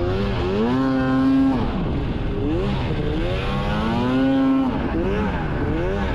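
Snowmobile engine revving under throttle twice, the pitch climbing and then holding level for about a second each time before dropping back, with smaller rev changes in between.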